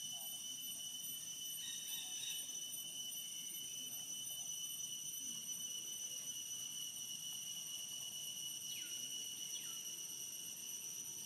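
Steady high-pitched insect chorus, several constant tones held without a break. A few faint, short calls slide down in pitch about two seconds in and twice near the end.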